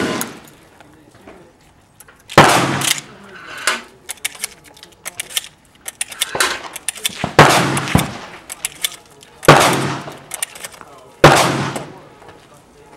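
Shotgun fired repeatedly, about six loud shots at uneven intervals of one to four seconds, each trailing off in a short echo. Smaller clicks and knocks of gun handling come between the shots.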